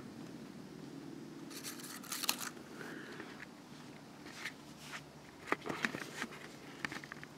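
Quiet handling noises: a brief papery rustle about two seconds in, then a few scattered light clicks and taps.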